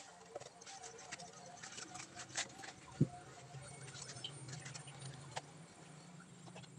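Light scrapes and scattered taps of masonry work: a steel trowel working wet concrete against a wooden form board and concrete blocks being handled, with one sharper knock about three seconds in. A faint low hum runs under the second half.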